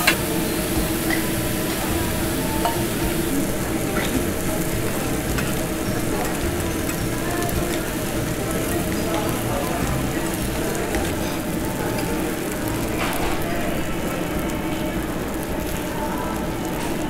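Meat sizzling steadily on a tabletop Korean barbecue grill plate, with a few faint clicks.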